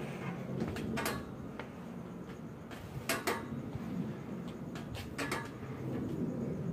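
Irregular sharp clicks and knocks, two of them close together twice, over a steady low rumble.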